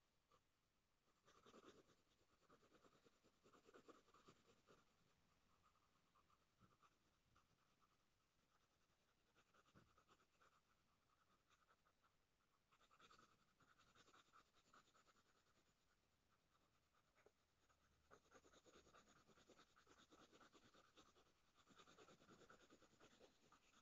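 Very faint scratching of a coloured pencil shading on paper, in uneven runs of quick strokes.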